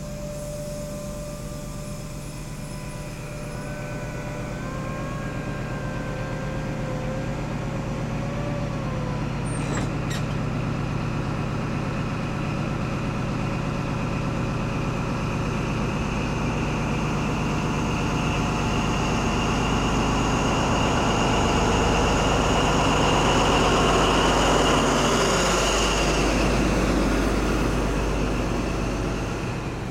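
Class 43 HST diesel power cars working as an InterCity 125 pulls away, the coaches rolling past. The rear power car's engine grows steadily louder as it approaches and passes close about 25 seconds in, its high whine dropping in pitch as it goes by, then fades.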